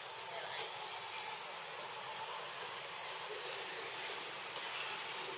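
Steady high hiss of outdoor forest ambience, with no distinct calls or knocks.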